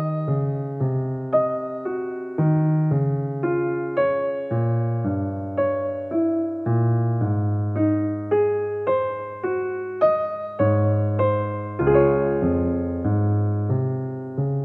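Background music: a slow, gentle piano piece, single notes and chords struck about once or twice a second and left to ring.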